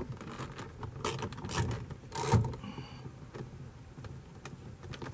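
A socket on a ratchet handle turning out a screw in a plastic truck door panel: a few short scraping, rubbing bursts in the first two and a half seconds, then scattered light metal clicks.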